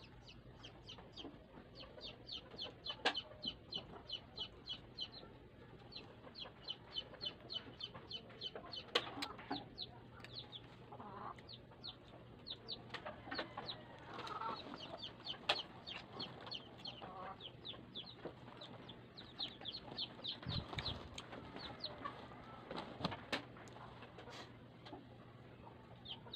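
Chickens clucking, with repeated runs of quick high-pitched chirps lasting a second or two each, and a few sharp clicks.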